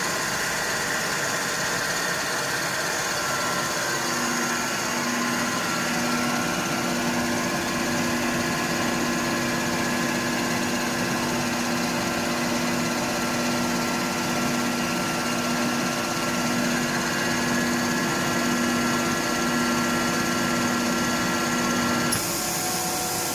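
ALUP COMBI GE 7.5 screw air compressor running steadily under load, building pressure in its air receiver toward 10 bar, with a steady hum and whine. About a second before the end its sound changes abruptly, as it reaches its 10 bar cut-out pressure and unloads.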